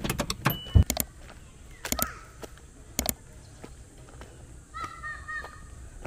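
Sharp clicks and knocks, several in quick succession in the first second, then single ones about two and three seconds in. Near the end a crow caws once.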